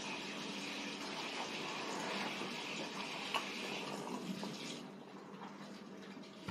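Steady running water, like a tap left on, that stops about five seconds in, over a faint low hum.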